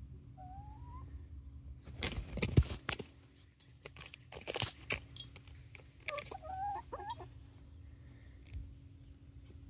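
Young chickens (19-week-old Barred Rock and Gold Star pullets) giving a short rising call, then a wavering, warbling call later on. Loud scuffing and crunching close to the microphone about two and a half seconds in and again near four and a half seconds is the loudest sound.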